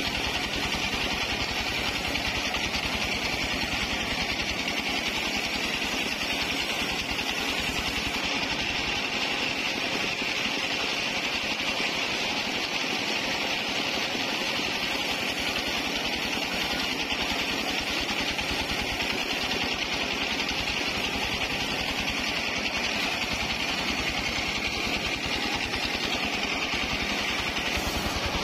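Portable bandsaw sawmill running steadily, its blade sawing lengthwise through a waru log, a continuous even-level machine noise with no pauses.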